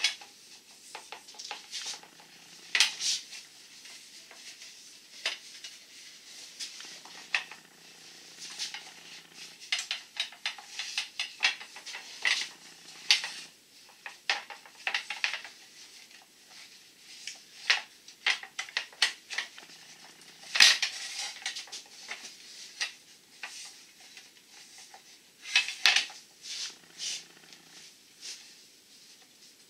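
Soft copper tubing clinking and scraping against itself and a sheet-metal tabletop as it is wound by hand into a coil around a round form. Irregular metallic clicks and short scrapes throughout, the loudest about two-thirds of the way through.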